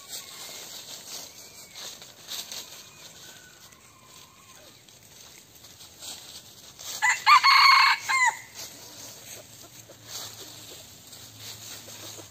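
Red junglefowl rooster crowing once, a short loud crow about seven seconds in that ends with a quick falling note. A few faint short calls come before it.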